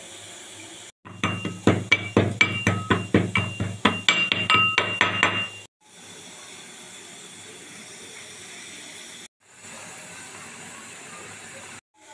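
Steel pestle pounding peppercorns in a small steel mortar: a quick run of about twenty sharp metallic clinks, several a second, that stops about halfway through.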